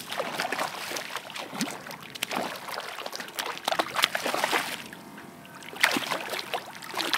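A hooked barracuda thrashing at the water's surface, splashing in repeated bursts.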